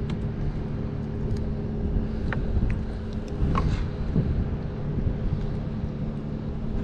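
Steady low outdoor rumble with a constant hum under it, and a few light clicks and taps from hands working a hook out of a small California scorpionfish's mouth.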